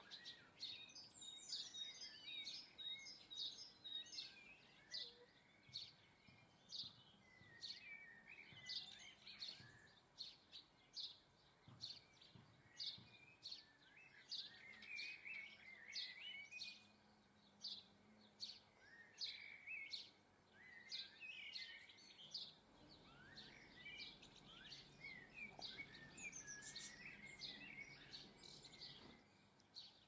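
Small garden songbirds calling faintly: a steady run of short high chirps, about two a second, mixed with brief twittering phrases.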